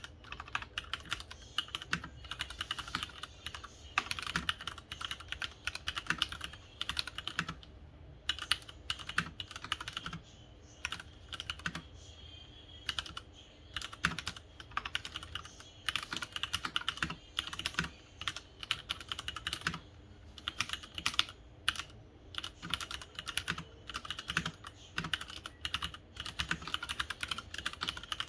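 Typing on a Leopold FC900R mechanical keyboard with linear Cherry MX Red switches: quick runs of keystrokes broken by short pauses.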